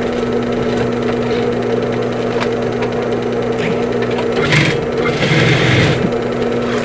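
Sewing machine running steadily with a constant motor hum, as a replacement bag zipper is stitched; about four and a half seconds in, the hum changes for a second or so into a louder, rougher sound.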